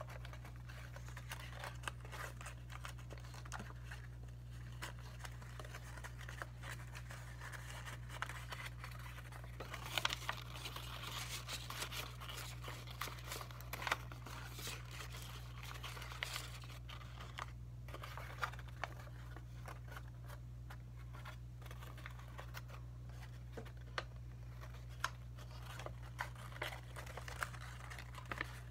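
A sheet of white paper being folded and creased by hand for origami, rustling and crinkling with scattered sharp crackles, loudest about ten and fourteen seconds in. A steady low hum runs underneath.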